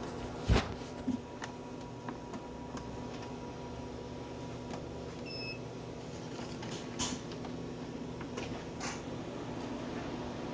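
Steady low electrical hum from the equipment, with scattered sharp clicks and knocks of parts being handled; the loudest knock comes about half a second in. One short high beep sounds about halfway through.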